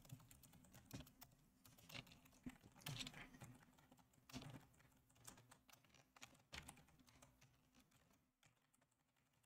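Faint, sparse keystrokes on a computer keyboard, single taps and short runs with pauses between them.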